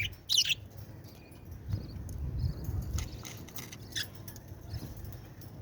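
Bird chirping: a short burst of high chirps right at the start, then only a few faint, scattered chirps.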